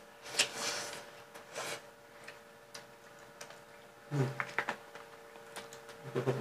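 Close-up eating sounds of people eating with their hands: scattered small clicks and smacks, with two short noisy sucking sounds near the start, over a steady background hum. A brief low vocal sound comes about four seconds in and again near the end.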